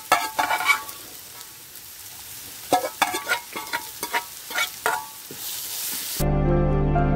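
Sliced onions and shallots sizzling in hot oil in a metal pan, stirred with a metal spoon that clinks and scrapes against the pan in quick strokes, in two bursts. About six seconds in, the sound cuts off abruptly to background music.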